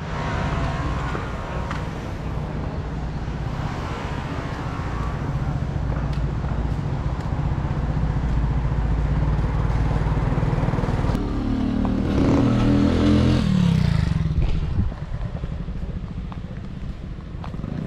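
An engine running steadily; it revs up about twelve seconds in, then drops back a few seconds later.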